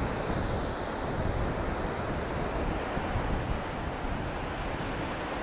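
Ocean surf washing onto the beach, a steady rushing noise, with wind rumbling on the phone's microphone.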